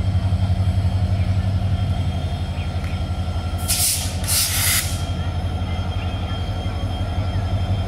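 Diesel locomotive engine running at idle with a steady, pulsing low drone. About halfway through come two short, sharp hisses of air, one right after the other.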